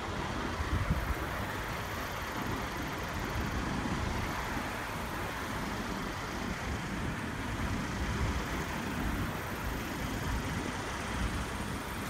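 Steady outdoor background noise with an irregular low rumble underneath.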